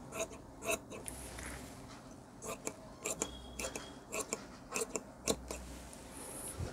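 Tailor's scissors cutting through blouse fabric: a run of sharp, crisp snips a few per second as the blades close, with a pause of about a second and a half near the start.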